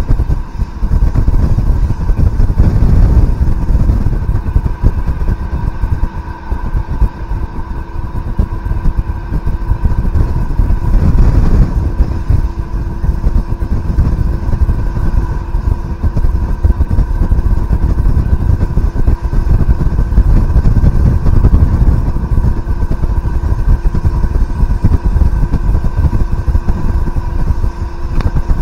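FS ALn 668 diesel railcar running at a steady speed: a constant drone from its underfloor diesel engines, with steady whining tones over the rumble of the wheels on the track.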